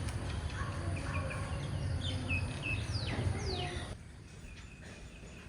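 Small birds chirping, with two quick falling whistles about three seconds in, over a steady low outdoor rumble that drops away suddenly near the end.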